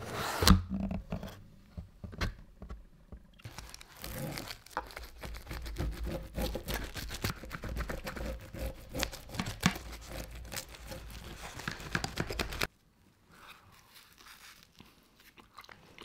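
A sharp knock as a cardboard pizza box is handled, then a rolling pizza cutter slicing through a pizza's crisp crust, a dense run of crunching and scraping against the cardboard box that cuts off suddenly near the end.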